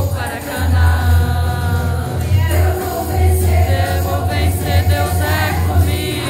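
Women's choir singing a gospel song, the voices holding and moving between notes over a steady low accompaniment.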